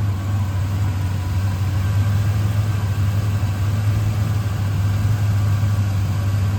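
1994 Ford Ranger's 3.0-litre V6 idling steadily and smoothly, with no misfire now that its bad fuel injectors have been replaced.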